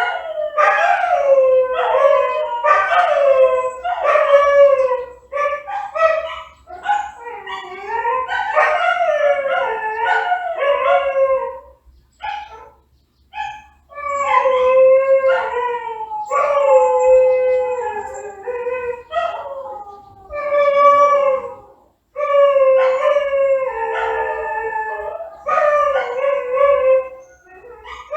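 A dog howling: long, mournful, wavering howls, one after another, with a few short yips in a brief pause about halfway through.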